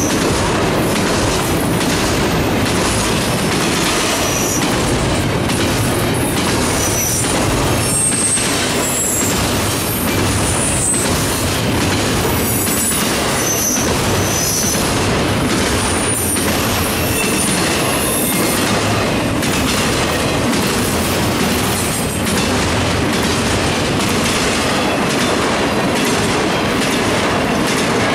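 Double-stack intermodal well cars of a CSX freight train rolling past close by: a steady rumble with the clack of wheels over the rail joints, and brief high-pitched wheel squeals here and there.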